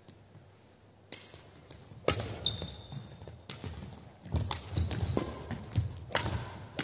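Badminton rally: sharp cracks of rackets striking a shuttlecock, about seven hits at irregular half-second to one-second gaps from about a second in, with thuds of players' footwork on the court floor.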